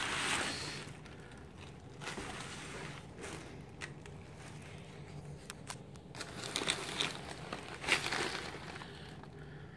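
Plastic air-pillow packing crinkling and rustling as it is handled and pushed aside in a cardboard box, with scattered small crackles; louder crinkling at the start and again around six to eight seconds in.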